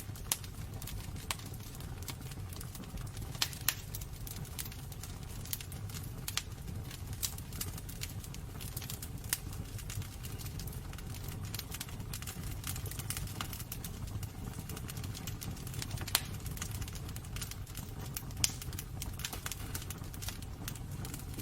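Wood fire burning in a fireplace: a steady low rumble with irregular sharp crackles and pops throughout, a few louder pops standing out.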